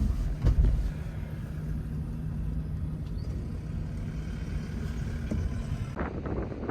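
A vehicle running steadily with a low engine hum, with a couple of knocks in the first second. Wind noise rushes in near the end.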